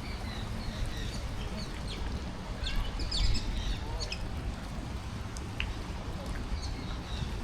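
Birds calling faintly: a few short, high chirps, clustered about three seconds in, over a steady low rumble.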